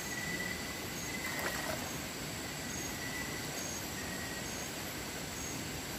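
Night insects calling: a steady high trill with short high chirps repeating a little under once a second, over an even hiss, and one faint click about a second and a half in.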